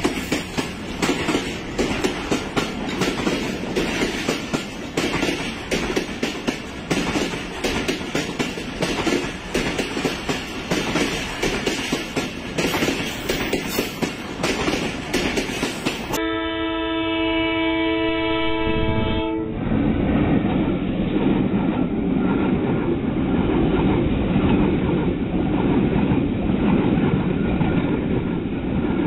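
Passenger coaches of a Bangladesh Railway express train rolling past, with wheels clattering over the rail joints. About halfway through, a diesel locomotive's multi-note horn blows steadily for about three seconds, followed by the steady rumble of a passing train.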